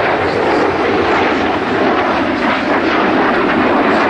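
Single Rolls-Royce Spey turbofan of an AMX light attack jet in flight, a loud, steady rushing jet noise.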